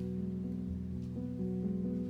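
Soft instrumental background music with gentle plucked guitar notes.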